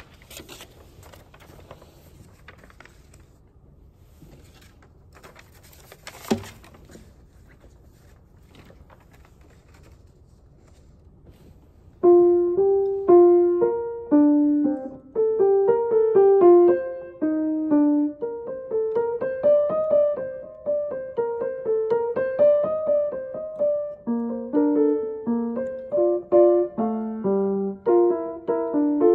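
Quiet room noise with faint handling sounds and one knock about six seconds in. About twelve seconds in, a grand piano starts playing a moderate-paced single melodic line, and more parts soon join it.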